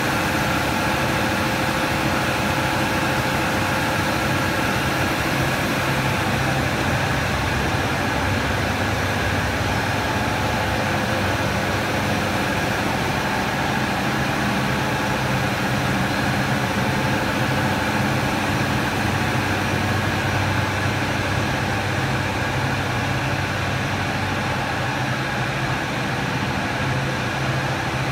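PVC cable extrusion line running: a steady hum of motors and drives, with several constant tones over even machine noise.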